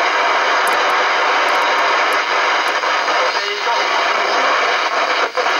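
Shogun CB radio receiving on the 11-metre band with the squelch open, giving a loud steady hiss of band noise from its speaker as the channel knob is stepped through the channels. A faint, broken voice from a distant station comes through the noise about halfway.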